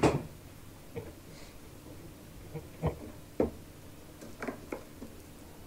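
Sharp knocks and clunks, one loud one at the start and several lighter ones after: a drinking glass and a bottle of oolong tea being set down on a wooden table.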